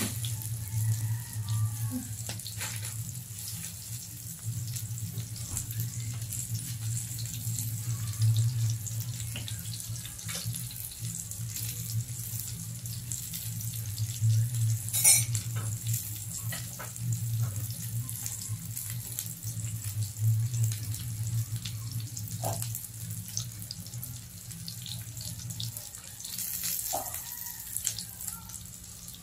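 Pork belly and eggplants sizzling in a grill pan on a gas stove: a steady hiss with scattered crackles and pops of spattering fat. A low steady hum runs underneath and stops near the end.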